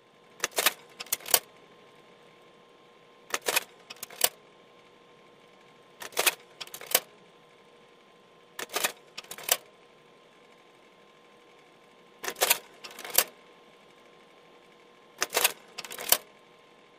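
Typewriter-style clacking sound effect: short clusters of two to four sharp clacks, about every three seconds, over a faint steady hiss.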